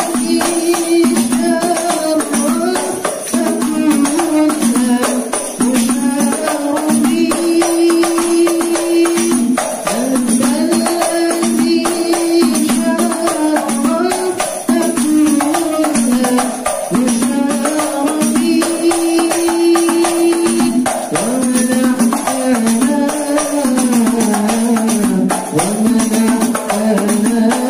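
Sholawat sung in Albanjari style: a young man's voice sings an Arabic devotional melody with long held notes, over two hand-beaten frame drums (terbang) keeping a steady rhythm.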